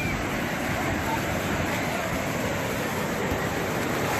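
Ocean surf breaking and washing up the sand in a steady rush of waves.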